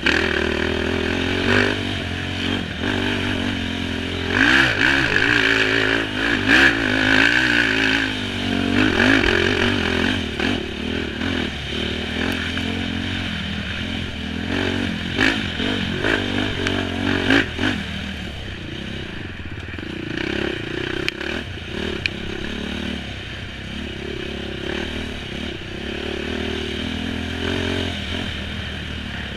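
Dirt bike engine revving up and down as it is ridden hard over rough ground, with sharp knocks and rattles from the bumps, most of them in the first half.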